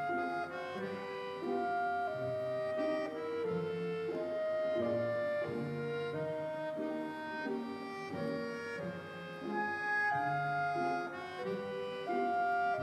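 Instrumental background music: a melody of held notes over lower accompanying parts, changing note every half second or so.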